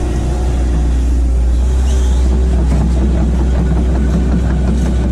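Hitachi hydraulic excavator's diesel engine running steadily with a deep, constant hum.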